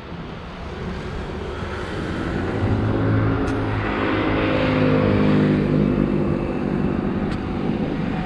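A motor vehicle's engine running close by, with a steady hum that grows louder over the first few seconds and then holds.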